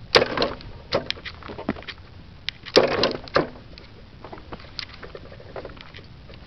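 Homemade electric mini ATV rattling and knocking as it rolls over cracked pavement, with two louder clattering bursts, one just after the start and one about three seconds in, and smaller clicks between.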